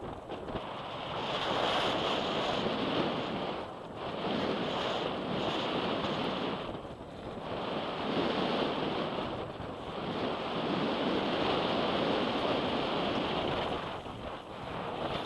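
Wind rushing over the microphone of a handlebar-mounted camera, mixed with a mountain bike's tyres rolling over a dirt and gravel trail at speed. The rush swells and eases several times.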